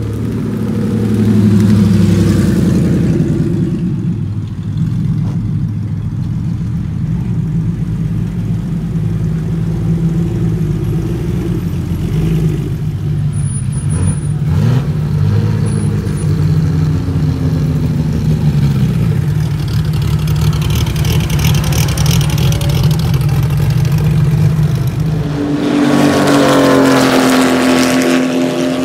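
Car engines running as an RWB Porsche 911 and other cars pull away, a steady low engine drone with some shifts in pitch. About three seconds before the end it changes to a car engine revving higher on a race circuit.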